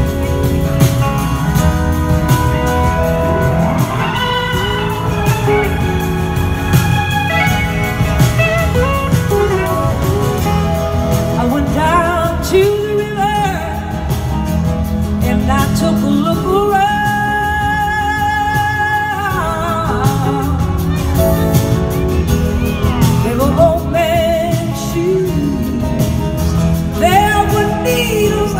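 Live band playing a slow soul-blues ballad, a woman singing the lead over electric guitars, drums and keyboards, heard from the audience in a large hall.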